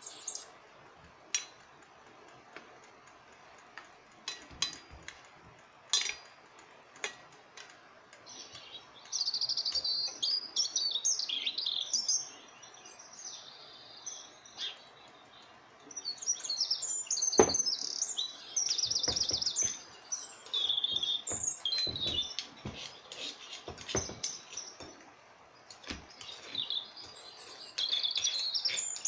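Small birds chirping and twittering in quick high trills that come in bouts, starting about nine seconds in. Before that there are a few sharp clicks and taps, and a single louder knock comes partway through.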